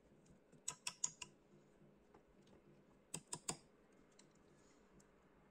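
Two short clusters of light clicks and taps, one about a second in and one a little after three seconds, from hands handling wires against the quad's carbon-fibre frame and flight controller; the rest is near silence.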